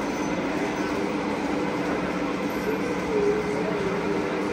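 Miniature trains running on layouts, a steady rumble with a crowd talking over it.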